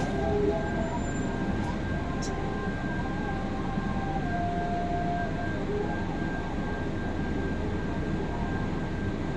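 Bus engine idling while the bus stands still, heard from inside the cabin as a steady low rumble, with a thin steady high tone running above it.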